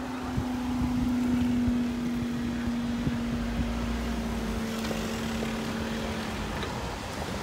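Level crossing barrier mechanism humming steadily as the barrier booms rise, cutting off near the end as they reach upright, with a few light knocks.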